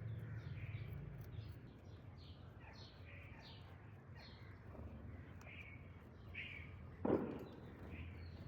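Small birds chirping in quick short downward-sweeping notes, several a second, with one short loud harsh noise about seven seconds in.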